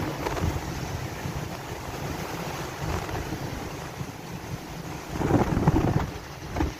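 Strong wind buffeting the microphone over a rough sea, with waves and spray breaking along a bulk carrier's hull; the wind gusts hardest about five seconds in.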